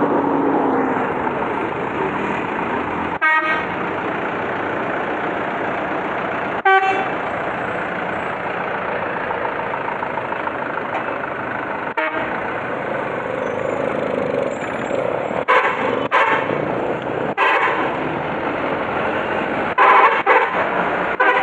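Truck's telolet multi-tone air horn giving short toots, about eight times, some in quick pairs near the end, over the steady noise of a running truck engine and traffic.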